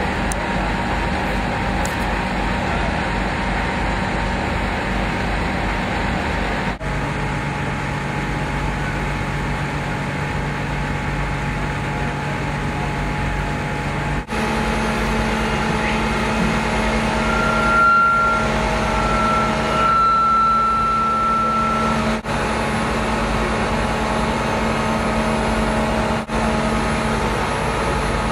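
Steady drone of fireboat engines and fire pumps running, across several short cuts between shots. A thin, steady high whine joins for a few seconds just past the middle.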